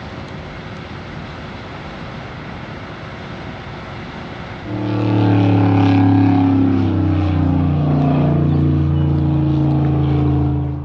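Steady rushing noise, then about five seconds in a loud engine comes in, running with a low steady hum and slight shifts in pitch before cutting off abruptly.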